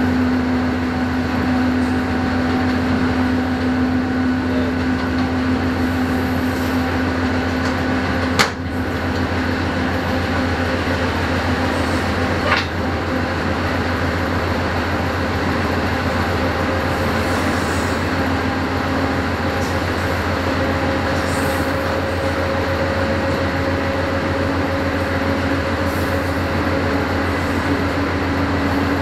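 Pakistan Railways AGE-30 diesel-electric locomotive running at speed, heard from the cab: a steady engine drone with a held humming tone. Two sharp knocks stand out, about eight and twelve seconds in.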